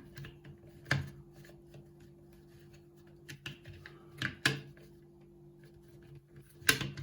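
Hard plastic parts of an Amazon Echo clicking and knocking as its replacement speaker is pressed into place: one sharp knock about a second in, two close together just past four seconds, and a louder one near the end.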